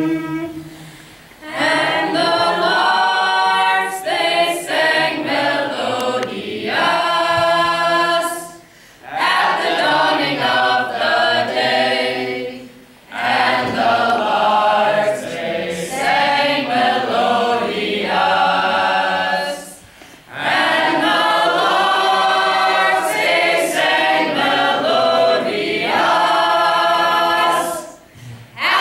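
A chorus of voices singing unaccompanied, in phrases of a few seconds with short breaks between them.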